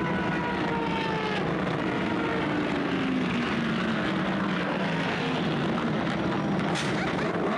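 Race car engines droning steadily in the pit lane, with several engine notes sliding slowly down in pitch over a few seconds. There is a sharp click near the end.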